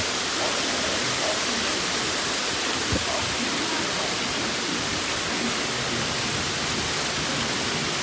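Fountain water spilling over the rim of a wide stone disc into its basin: a steady rushing splash. A single short click about three seconds in.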